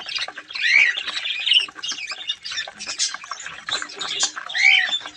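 A flock of budgerigars chattering without pause, with a few louder squawks standing out about a second in, a second and a half in, and near the end.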